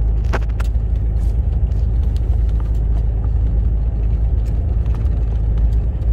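Truck engine and road noise heard inside the cab while driving: a steady low rumble, with a couple of short rattles about half a second in.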